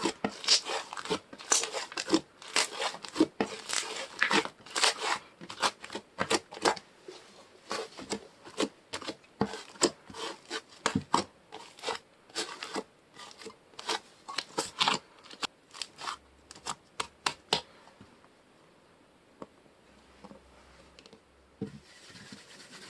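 Hands playing with soft slime: a rapid run of crackling pops and squishes, several a second, that stops about 18 seconds in, followed by a few faint soft sounds.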